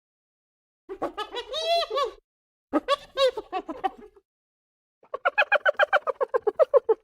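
Spotted hyena vocalising: two short bouts of pitched calls that bend up and down, then from about five seconds in a fast run of short, evenly spaced notes, the hyena's giggling 'laugh'.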